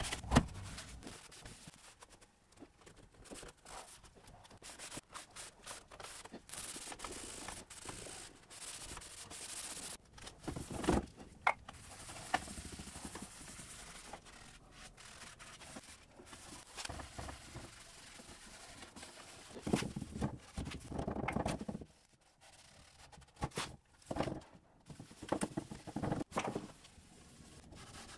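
A rag wiping gel stain onto wood, cloth rubbing over the surface in uneven strokes, with some louder swipes.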